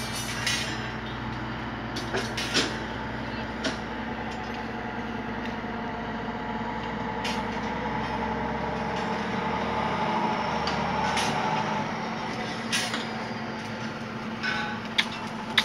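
Heavy truck engines running, swelling louder for a few seconds midway through. About eight sharp knocks, like metal or wood being handled, are scattered through it.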